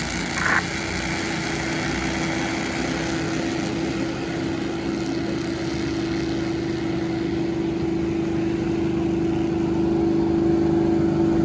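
A pack of Bandolero race cars with small single-cylinder engines running together on the track, a steady engine drone that grows a little louder near the end.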